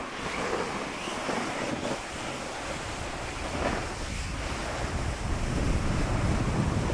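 Wind buffeting a phone's microphone while moving downhill, over a steady hiss of sliding on snow. The low rumble of the wind eases early and builds again near the end.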